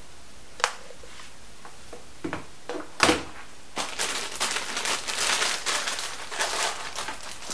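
A few knocks as a laptop power adapter and its cables are set down on a wooden table, the loudest about three seconds in. A plastic packaging bag then crinkles steadily as it is handled.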